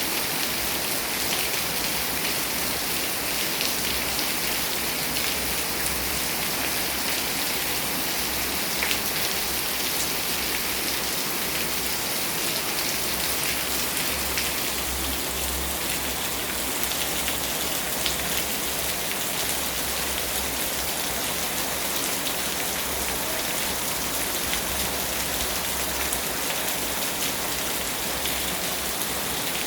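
Heavy rain falling steadily on pavement, an even hiss with many fine drop ticks throughout.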